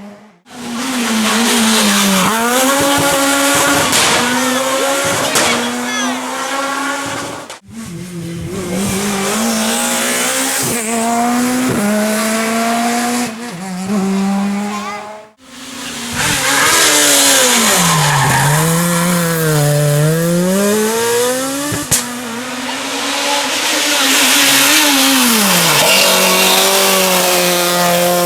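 Rally cars' naturally aspirated four-cylinder engines revving hard through gearshifts and lifts, the pitch climbing and dropping again and again. The sound cuts out briefly three times: near the start, about a quarter of the way in and about halfway through.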